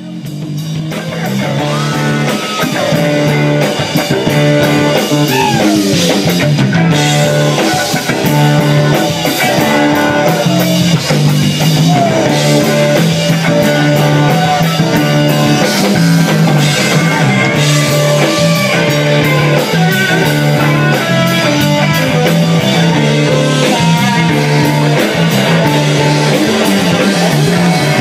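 Live rock band jamming, recorded from the audience: electric guitars, bass, keyboards and drum kit, with a lead line of sliding, bending notes. The music fades in over the first couple of seconds.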